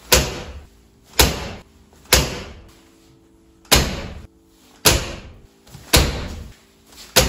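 Driver's door of a 1977 Porsche 911S being opened and shut over and over: seven sharp metal door pings about a second apart, each ringing briefly.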